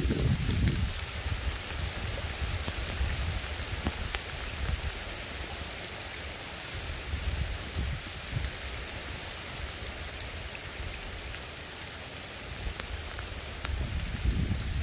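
Steady rain falling on a flooded river and its grassy, leafy bank: an even hiss with scattered small drop hits. A low rumble comes in at the start and again near the end.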